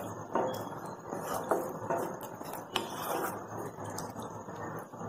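Wooden spatula stirring and scraping paneer, onion and capsicum masala in a non-stick pan, with several irregular knocks and scrapes against the pan.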